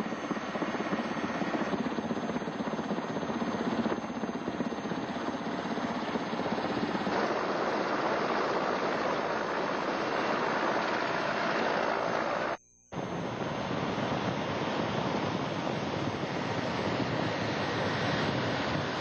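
Helicopter in flight, heard from inside the cabin: a steady, dense rushing noise of engine, rotor and air. It cuts out completely for a moment about two-thirds of the way through, then carries on.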